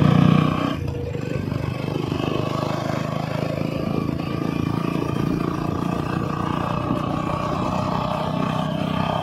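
Motorcycle running steadily at road speed, with wind and road noise. The sound drops in level within the first second, then holds even.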